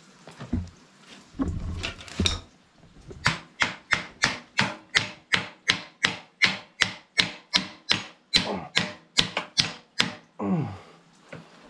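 A rapid, even run of hammer blows on metal, about four a second for some seven seconds, each with a short ring, after a few scattered knocks.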